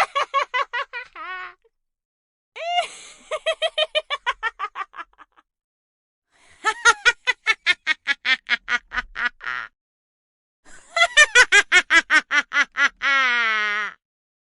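Meme laughing sound effects played one after another: a short run of laughter trails off, then three separate high-pitched laughs, each a fast string of "ha" bursts about five a second, with short gaps between them. The last laugh ends in a long wheeze that falls in pitch.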